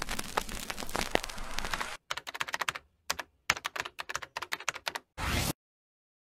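Keyboard-typing sound effect: rapid clicks, dense for the first two seconds, then in short separated runs. A half-second burst of hiss comes a little after five seconds in.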